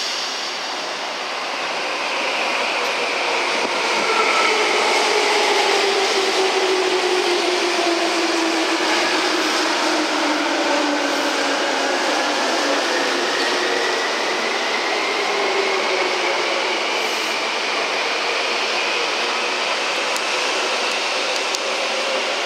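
Tobu 20000 series chopper-controlled electric train braking into a station over rolling wheel and rail noise. A whine from its traction equipment falls steadily in pitch as it slows. Through the second half a higher whine rises slowly.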